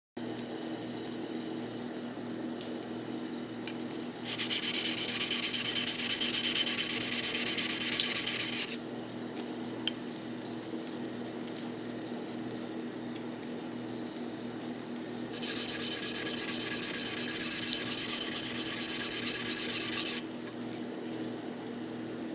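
Single-bevel yanagiba blade scraping across a whetstone in two spells of stroking, each about four to five seconds long, over a low steady hum. The bevel (kiriha) is being ground section by section with the edge held off the stone.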